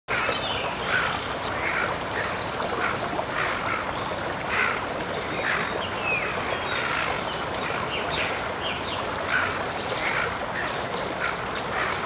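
Ducks quacking repeatedly, about one or two short calls a second, over a steady background hiss.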